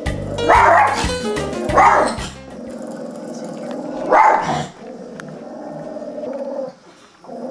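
A dog barks three times, with a steady growl carrying on between and after the barks. Music with a low beat plays under the first two barks and stops about two and a half seconds in.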